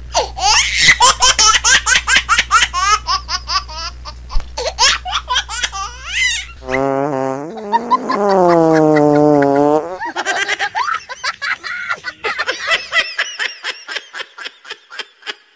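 High-pitched laughter in quick repeated bursts. A long wavering held tone of a few seconds breaks it about seven seconds in, then the laughing bursts return.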